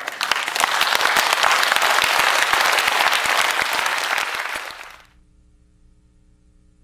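Audience applauding with dense clapping that is cut off abruptly about five seconds in. A quiet steady hum follows.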